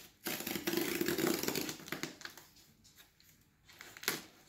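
Scissors slitting the packing tape along a cardboard box's seam, a loud rasping cut lasting about a second and a half, followed by quieter scraping of cardboard. A sharp click near the end.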